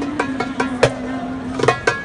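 Middle Eastern folk-style music: a hand drum beating a quick, even rhythm under one long held note that ends near the end.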